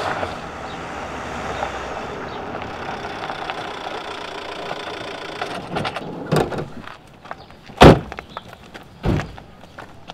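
A small van's engine runs as it rolls up a gravel lane and stops. It is followed by three sharp bangs, the loudest about eight seconds in, as the van's front and sliding doors are thrown open.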